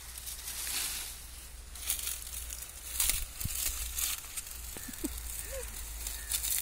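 Dry palm fronds rustling and crackling as they are gathered and pressed into a bundle by hand, with several sharp crackles.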